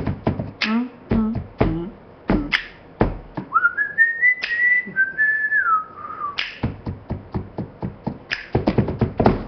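A woman beatboxing: rapid mouth clicks and pops, with a few short sung 'bum' notes near the start. In the middle comes a whistled phrase of about three seconds that rises and then falls, followed by a quick run of mouth clicks.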